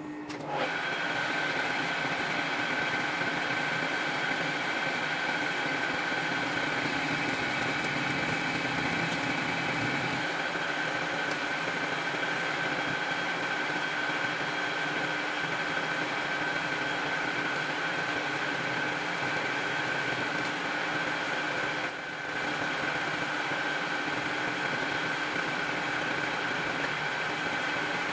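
Metal lathe starting up about half a second in, then running steadily with a constant whine, with one brief dip about three-quarters of the way through. The lathe is turning, then drilling, a small part held in its three-jaw chuck.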